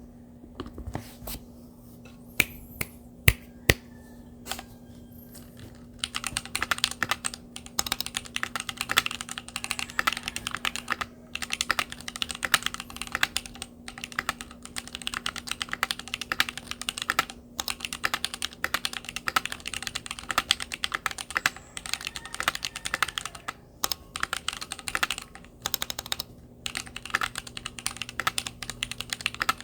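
Typing on a Keychron Q1 mechanical keyboard: a few scattered keystrokes for about the first six seconds, then steady fast typing with short pauses.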